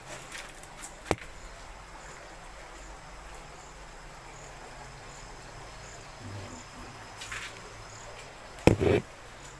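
Crickets chirping steadily in the background, a short high chirp repeated at an even pace. A sharp click about a second in and a louder thud near the end break through it.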